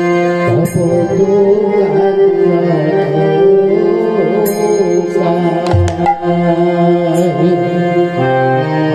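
Bengali kirtan music: a sustained drone and chords under a wavering melodic line, with khol drum strokes, one deep bass stroke near the middle, and three bright cymbal clashes spread through.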